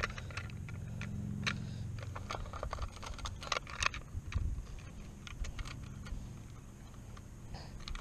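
Handling noise of a dial hanging fish scale: irregular clicks and rattles of its metal hook and plastic housing as a bass is readied for weighing, over a low rumble that fades after about two seconds.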